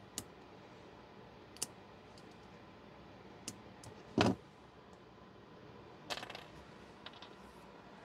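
Scattered small clicks and taps of plastic PTFE tube fittings and flush-cut pliers being handled and set down on a work mat, with one heavier knock about four seconds in and a short cluster of clicks about six seconds in.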